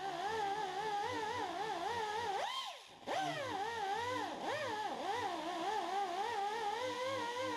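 Lofi background music: a lead melody that wavers and glides in pitch, with a low, soft beat beneath it and a brief dip about three seconds in.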